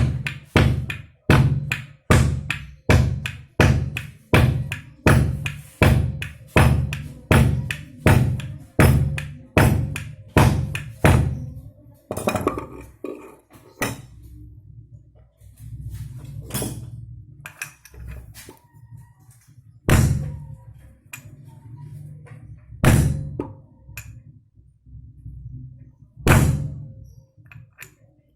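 Hammer blows on metal, tapping a new bearing into the Honda Vario 110's rear CVT pulley: a steady run of blows about one and a half to two a second, then from about twelve seconds in a few single blows several seconds apart.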